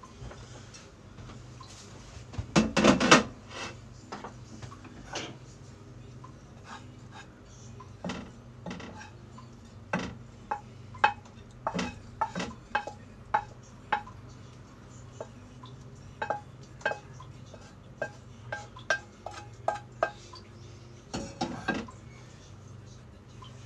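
A wooden spatula knocking and scraping against a frying pan as stir-fried food is pushed out onto a plate: a run of sharp separate taps and clinks, with a louder clatter about three seconds in and another near the end, over a steady low hum.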